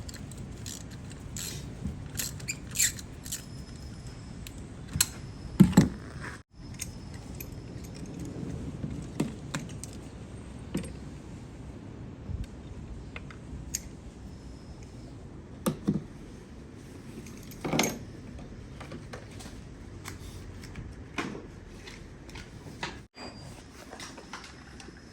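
Scattered metallic clicks and clinks of hand tools, a spark plug socket and wrench, worked by hand on the engine during a spark plug change.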